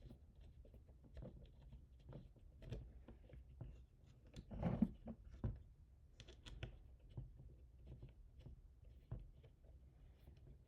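Faint, scattered clicks and knocks of parts and tools being handled during printer assembly, with one louder knock about halfway through.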